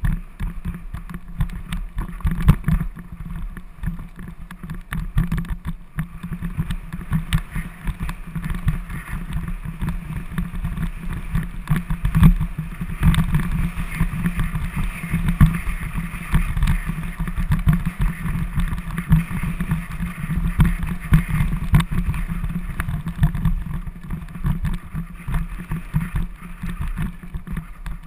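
Mountain bike rattling and thumping over a stone-flagged path: a continuous rumble broken by many irregular knocks as the wheels hit the flags, heard through a helmet-mounted action camera.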